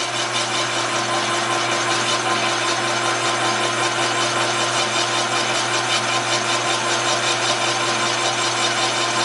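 Metal lathe running with a motorcycle engine crankcase turning in its chuck while the case is bored out for a larger displacement: a steady motor hum with an even rasp of cutting over it.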